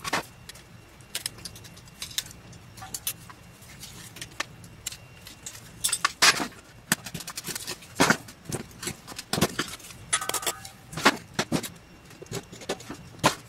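Pliers crunching and prying apart a corroded carbon-zinc lantern battery on a metal tray: irregular clinks, cracks and scrapes of brittle casing and debris.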